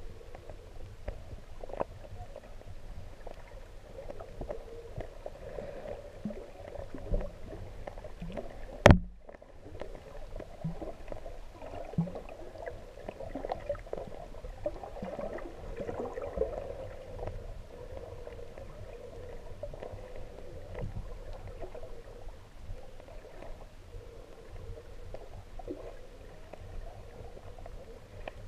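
Muffled underwater sound heard through a GoPro's waterproof housing: steady low water noise with scattered small knocks. A sharp click comes about nine seconds in, and the sound drops away briefly just after it.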